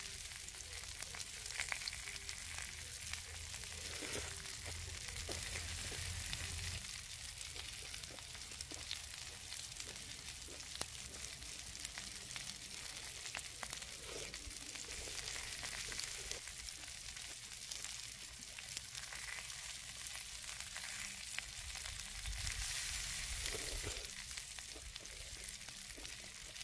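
Beef short ribs sizzling on a hot iron griddle plate: a steady hiss with scattered small crackles.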